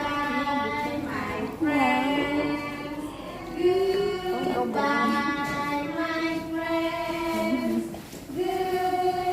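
A child singing a song, holding long, steady notes with short slides between them.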